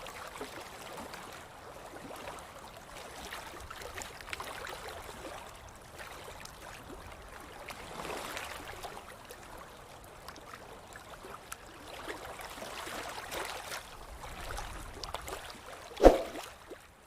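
Water moving and lapping, swelling and easing every few seconds. A single sharp thump near the end is the loudest sound.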